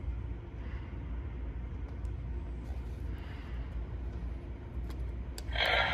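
Steady low hum of the shop floor with a couple of faint clicks. Then, just before the end, the Leatherface Side Stepper animatronic is set off and its speaker starts playing loudly.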